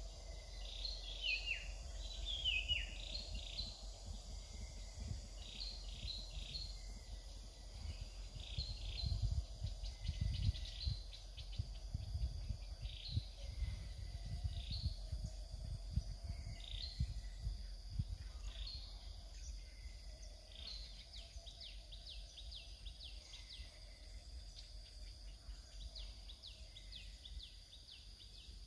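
Wild birds calling: clusters of short, quick, descending chirps come and go throughout, over a steady high insect hum and a low rumble that swells around ten seconds in.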